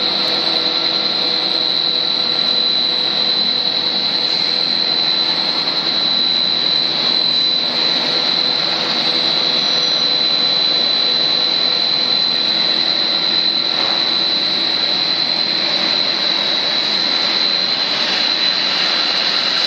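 PVC trunking extrusion line running: a steady machine drone under a loud, constant high-pitched whine.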